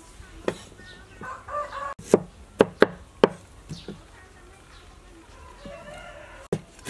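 Steel cleaver chopping on a thick wooden chopping block: a handful of sharp, uneven knocks, most of them in a quick cluster two to four seconds in and one more near the end. A brief pitched call sounds in the background about a second in.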